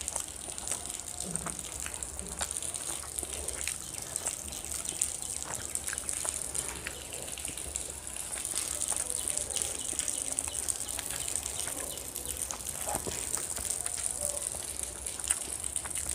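Close-miked eating sounds: chewing and wet mouth smacks, and fingers squishing curry-soaked rice on a banana leaf, heard as many small irregular clicks over a steady high hiss.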